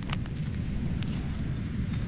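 Steady low rumble of wind and surf at the beach, with a few light clicks near the start and about a second in.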